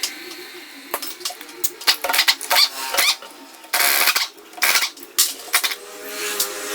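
Hand tools and metal parts clinking and knocking in irregular strikes, with a few short scrapes, as parts are taken off a Perodua Viva Elite's gearbox.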